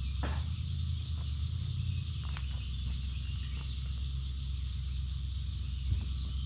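Steady low hum of a distant portable generator under a constant high drone of insects, with a few light clicks now and then.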